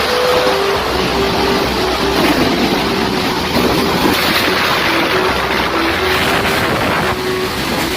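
Tornado-force wind blowing hard past the microphone: a dense, steady rush with a faint wavering whistle-like tone underneath.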